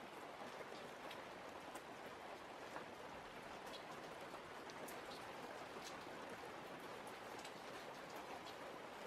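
Faint, steady outdoor hiss with many scattered small ticks throughout.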